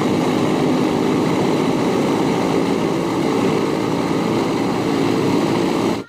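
Radial piston engines of a vintage four-engine propeller bomber running steadily on the ground: a loud, even drone that starts and stops abruptly.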